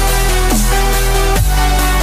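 Electronic background music with a heavy steady bass, sustained synth tones and a falling pitch swoop about once a second.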